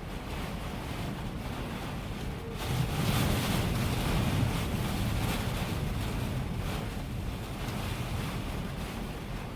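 Strong storm wind gusting and buffeting around a truck. A gust swells about three seconds in, then slowly eases.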